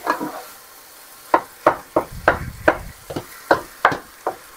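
A cooking utensil chopping and breaking up ground chicken in a frying pan, knocking against the pan in a run of sharp strokes about three a second from about a second in, over a faint sizzle of the meat frying.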